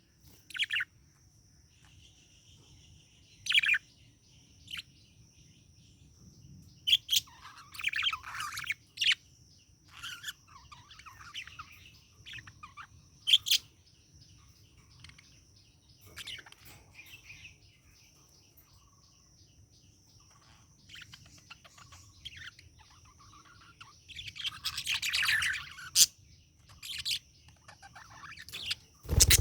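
Pet budgerigar chirping in short, separate calls, with two longer bursts of warbling chatter, the longest a few seconds before the end. A brief loud thump comes at the very end.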